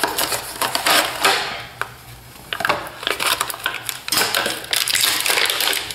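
Power bank retail packaging being opened by hand: cardboard box torn open, then a clear plastic blister tray handled and pulled, with many sharp crackles and clicks in the second half.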